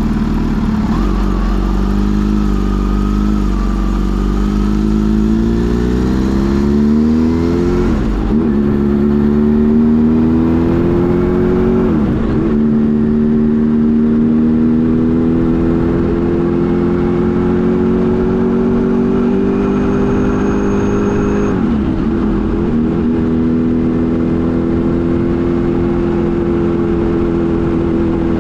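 Kawasaki Z H2 SE's supercharged inline-four engine pulling hard through the gears: its pitch climbs, drops sharply at three upshifts about eight, twelve and twenty-one seconds in, then rises again and holds fairly steady near the end.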